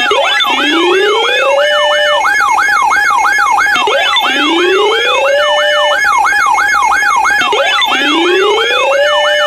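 Electronic alert siren of a mock Emergency Alert System broadcast: a fast yelping sweep about three times a second over a steady tone. A slower rising wail repeats three times, each rising for about a second and a half before holding briefly on a flat tone.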